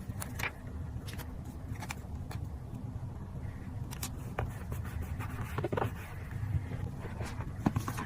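Paper and collage materials being handled: scattered short rustles, taps and light scrapes over a steady low rumble.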